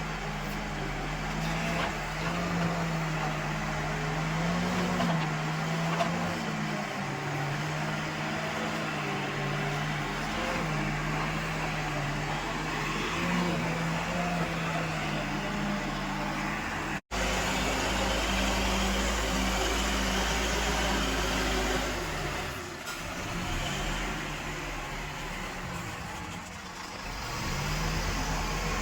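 Escorts Digmax backhoe loader's diesel engine working, its pitch rising and falling every few seconds under changing load. About two-thirds of the way through there is a sudden cut, after which the engine runs steadier with a deeper rumble for a few seconds.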